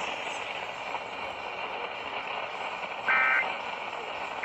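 Radio static hiss, then about three seconds in a short burst of Emergency Alert System SAME data tones, the harsh two-tone digital code that marks the end of an alert message; the next burst of the same code starts just as the first ends about a second later.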